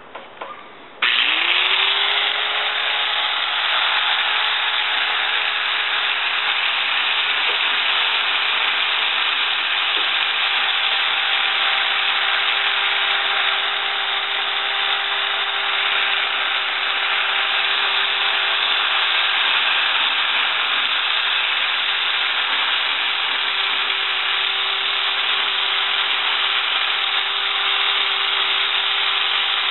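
Chicago Electric half-inch handheld belt sander switched on about a second in after a few handling clicks. Its motor spins up with a quickly rising whine, then runs at a steady pitch over a loud, even hiss.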